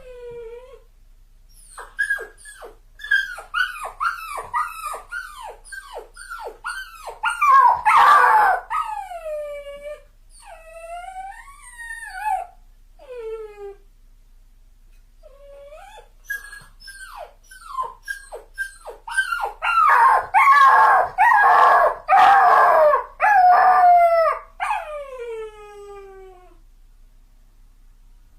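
A dog crying: runs of short, high whimpers that drop sharply in pitch, broken by louder, longer wailing cries that slide downward, in two louder spells with a short pause between them.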